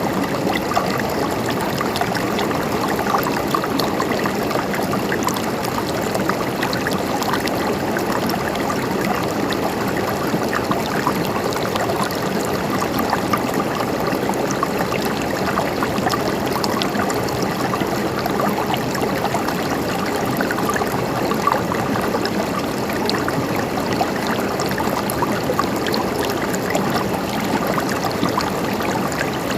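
River water flowing steadily over stones, a continuous rushing and gurgling with small splashes throughout.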